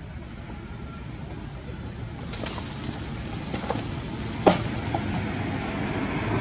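A steady low rumble that slowly grows louder, with a few faint clicks and one sharp click about four and a half seconds in.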